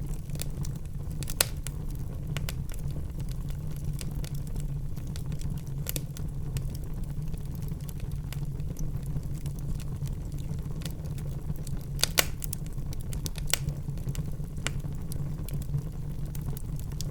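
Wood fire in a fireplace crackling: frequent sharp pops and snaps over a steady low rumble, with the loudest snaps about a second and a half in and again around twelve seconds in.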